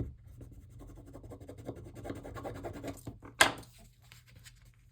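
Paper being handled and rubbed against the journal page and tabletop, a soft scraping and shuffling, with one sharp click about three and a half seconds in.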